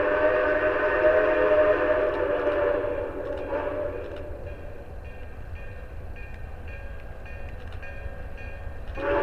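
Steam whistle of Grand Canyon Railway 2-8-2 Mikado No. 4960 blowing a chord of several tones: a blast of about three seconds, a faint short toot about three and a half seconds in, and another blast starting near the end.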